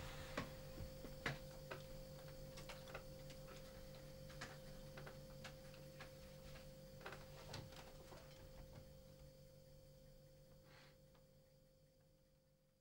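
Near silence: faint room tone with a steady hum and scattered soft clicks, fading out near the end.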